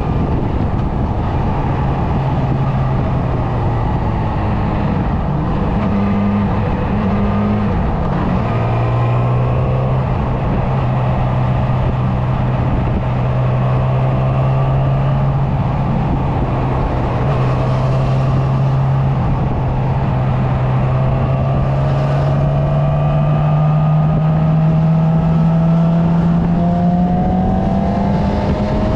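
A vehicle engine running at a steady cruise under heavy wind and road noise. Its pitch drops once about a quarter of the way in, holds, and then climbs slowly near the end as it speeds up.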